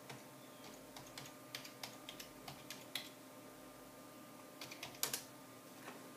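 Faint typing on a computer keyboard: scattered keystrokes in short runs, with a louder cluster of clicks around five seconds in.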